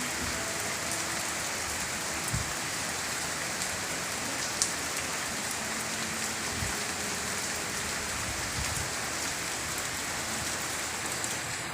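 Heavy rain falling steadily, an even hiss of rain with a few louder drop ticks, one sharper about four and a half seconds in.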